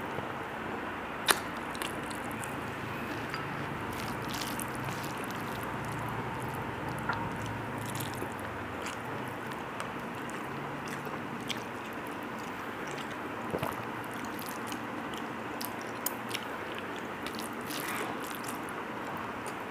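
Close-up eating sounds: a person chewing and smacking a mouthful of rice, and fingers mixing rice with vegetables on a steel plate, with scattered short clicks and squelches over a steady background hiss. The sharpest click comes about a second in.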